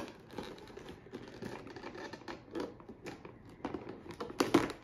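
Scissors snipping into a cardboard toy box with a clear plastic window: a run of small irregular clicks and crinkles, loudest near the end.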